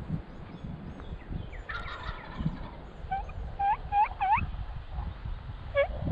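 Wild turkey gobbling about two seconds in with a quick rattling call. A run of about five short rising yelp-like notes follows, and a few more near the end.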